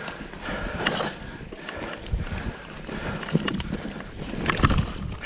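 Mountain bike rolling fast down a dirt singletrack: tyre noise over soil and leaves with wind on the microphone, and the bike rattling and knocking over roots and bumps.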